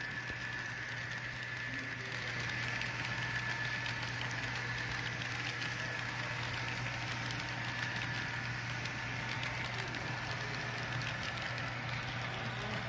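HO-scale diesel locomotive's SoundTraxx sound decoder playing a steady diesel engine sound as the train runs, with faint clicking from the cars rolling on the track.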